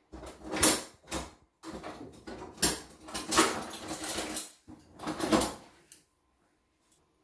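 Handling of a foil-lined baking tray of roast chicken: a run of short scrapes and foil rustles, stopping about six seconds in.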